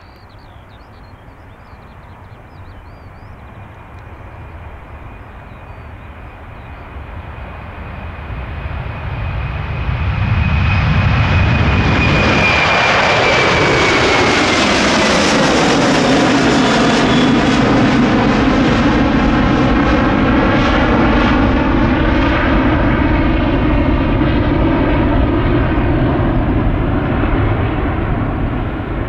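Jet airliner passing close. Its engine noise builds over several seconds, then a high whine drops in pitch as it goes by, followed by a loud rumble with a sweeping, phasing quality that eases slightly near the end.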